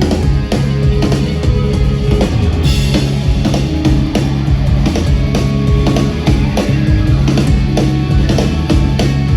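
Loud rock music with a drum kit and guitar, with a steady beat.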